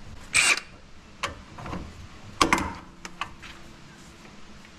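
Milwaukee cordless power tool driving a socket on a long extension against an exhaust manifold nut. One short spin of the motor about half a second in, then sharp clicks and clacks of the socket and extension, the loudest about two and a half seconds in, and a faint steady hum after that.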